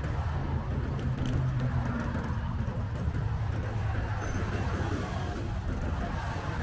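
Steady road traffic noise: cars running past, with a low rumble throughout.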